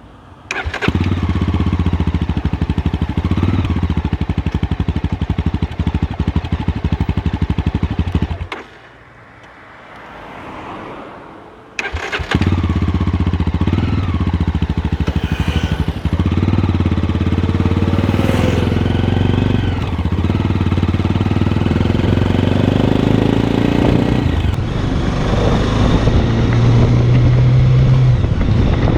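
Mahindra Mojo 300's single-cylinder engine running, with exhaust sound. It drops out around the eighth second, returns about four seconds later, and then revs up with rising pitch.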